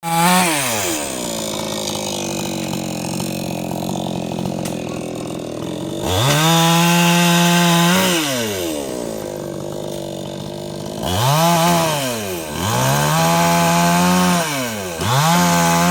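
Chainsaw engine alternating between idle and full-throttle revs: it drops from a high rev to idle in the first second, then revs up and holds for about two seconds around six seconds in, gives a short rev near eleven seconds, and two longer held revs after that.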